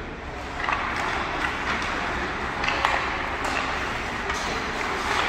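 Ice hockey game in play in an arena: a steady background of arena noise with a few sharp clacks of sticks and puck on the ice.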